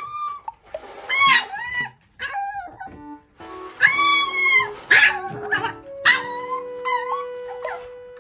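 A micro-teacup toy poodle puppy shrieking for its food: about six high, piercing yelping howls, the longest about four seconds in.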